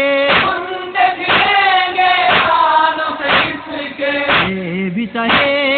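Voices singing an Urdu noha lament in long, wavering held notes, with a regular beat about once a second.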